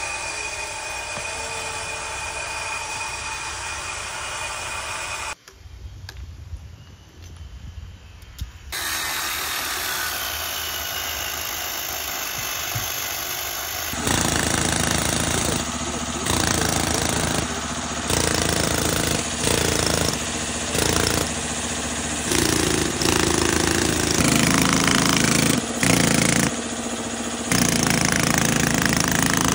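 Pneumatic carving hammer chiselling a stone block, running in bursts of a second or two with short stops, from about halfway through. Before it comes a steadier machine noise with a lull of a few seconds.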